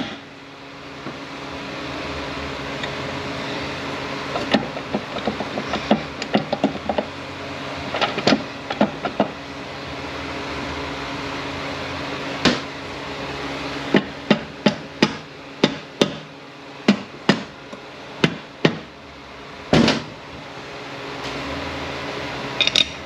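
A hammer tapping on the aluminium case of a Ford 8F40 automatic transmission. Scattered light taps give way to a run of about a dozen strikes, roughly two a second, and end with one heavier blow.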